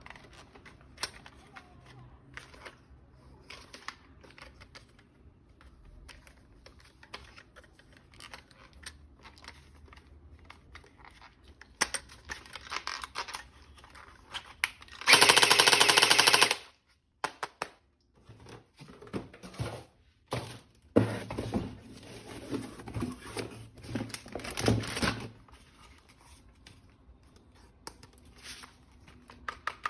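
Clicks and handling of a toy gun, then about halfway through a loud, very rapid machine-gun-like burst lasting about a second and a half. Several shorter rattling bursts follow.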